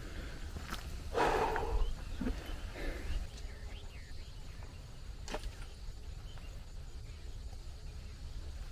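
Outdoor hillside ambience over a steady low rumble, with a short rustling scuffle about a second in and a single sharp click about five seconds in.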